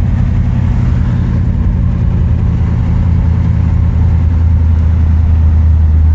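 1963 Chevrolet Impala running on the road: a steady low engine and road drone, growing slightly louder near the end.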